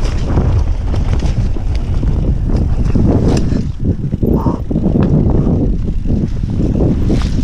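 Wind buffeting the microphone over the rumble of a mountain bike descending a dirt trail at speed, with sharp knocks from the bike over bumps and a short squeak about four seconds in.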